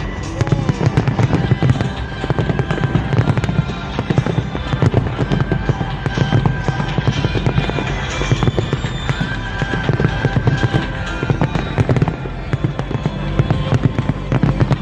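A dense fireworks display: a rapid, continuous run of bangs and crackles that never lets up, with music playing alongside.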